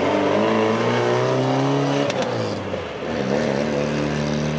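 Fiat 124 Spider's twin-cam four-cylinder engine running steadily, its pitch easing down a little over the first two seconds and dipping briefly about three seconds in before settling.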